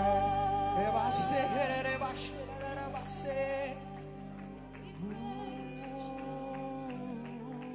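Live worship band and singers holding the final sung note of a song over sustained chords, with a few cymbal-like strokes, then dropping to a quieter held chord about halfway through.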